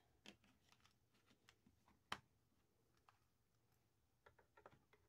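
Mostly near silence, broken by faint clicks and taps of small plastic Barbie playset pieces being handled: one sharper click about two seconds in and a few light ticks near the end.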